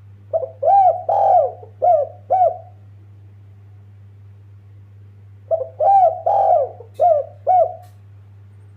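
Spotted dove (tekukur, derkuku) cooing: two phrases of about five rounded coos each, some five seconds apart, over a steady low hum.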